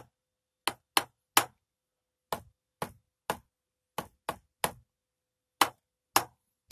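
Wooden drumstick striking rubber electronic cymbal pads, the ATV aD-CH17 17-inch China and an Alesis rubber crash, heard acoustically with no module sound: about a dozen short, dull clacks in small uneven groups, some much louder than others.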